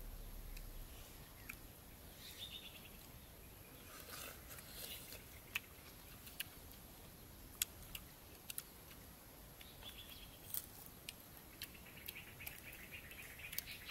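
Birds chirping and calling in short bursts over quiet rural background noise, with scattered sharp clicks now and then.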